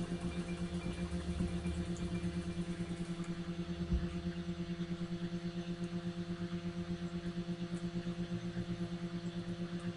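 Background music: a held low note with its overtones, pulsing rapidly and evenly.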